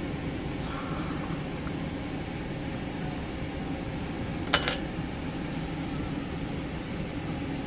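Steady low mechanical hum in a kitchen, with one sharp clink about four and a half seconds in as the funnel and glass mason jars are shifted on a metal tray.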